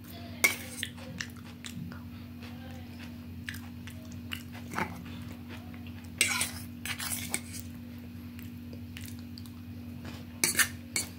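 A metal spoon clinks and scrapes on a stainless steel plate as soft food is scooped up: once near the start, a cluster about six to seven seconds in, and several quick clinks near the end. Quiet chewing fills the gaps over a steady low hum.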